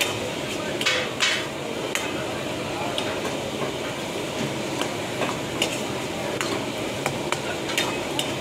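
Shrimp and tomatoes sizzling in a steel karahi as a metal ladle stirs and scrapes through them. The ladle knocks and clicks against the pan many times, most strongly twice about a second in.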